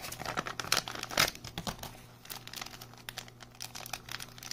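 Thin plastic zip bags crinkling and rustling in the hands as they are opened and handled, in irregular bursts of crackle, busiest in the first second or so.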